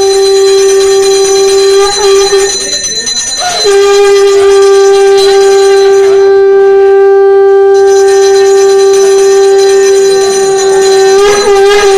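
Conch shell (shankha) blown in long, loud, steady blasts on one note. A short break for breath comes about two and a half seconds in, and the pitch wavers and bends near the end.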